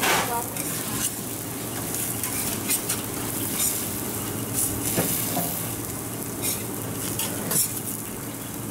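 Dosas sizzling on a hot flat griddle (tawa), with a steady frying hiss. A metal spatula scrapes and taps on the griddle every second or so as the dosas are folded, cut and lifted.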